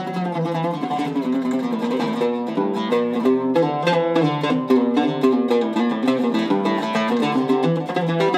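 Solo Zaryab oud with a cedar soundboard and African sissoo back being played, a quick, continuous run of plucked notes.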